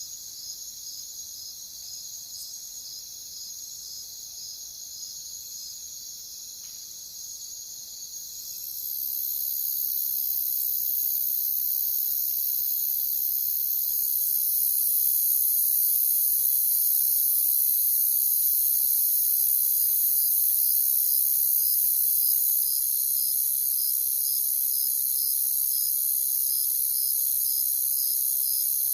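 Crickets chirping in a steady chorus: a continuous high trill with a slower, regularly pulsed chirp on top. An even higher layer of the chorus swells louder about eight seconds in and again a few seconds later, then holds.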